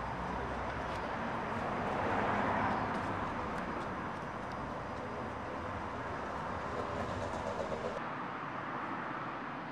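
Outdoor street ambience: a steady noise of traffic that swells slightly a couple of seconds in. The sound changes abruptly about eight seconds in, losing its low rumble.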